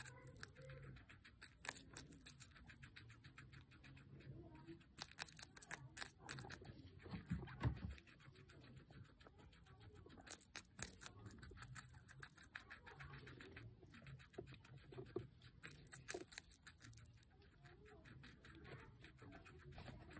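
Guinea pig biting and chewing raw red bell pepper: rapid, crisp crunching in runs of quick bites with short pauses between.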